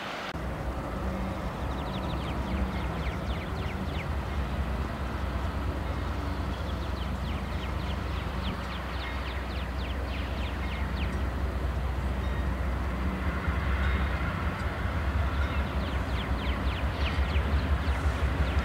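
GE Dash 9 diesel locomotive's V16 engine rumbling under load as it accelerates a freight train, growing louder as it approaches, with a step up in level about two-thirds of the way through.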